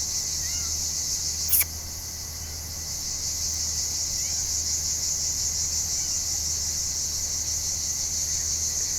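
A steady, high-pitched chorus of insects such as crickets or cicadas, with a few faint bird chirps. A single sharp click sounds about one and a half seconds in.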